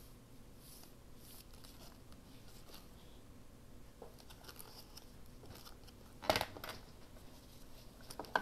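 Quiet handling and rustling of paper craft materials, with small ticks, one sharp snap about six seconds in and a smaller click near the end.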